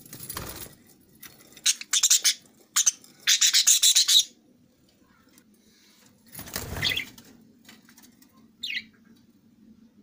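Budgerigars in the nest giving quick, harsh chirps in rapid bursts during the first half. A muffled rubbing noise follows about two-thirds in, then one short chirp near the end.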